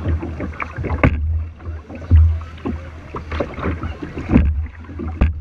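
Kayaks being paddled on a river: paddle blades splashing and water dripping, with a couple of sharp knocks about a second in and near the end, and a low rumble that swells every couple of seconds.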